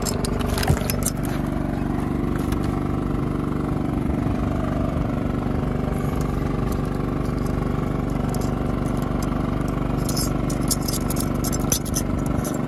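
A steady, even engine drone on a fishing boat, with scattered sharp clicks and taps about a second in and again in a cluster near the end.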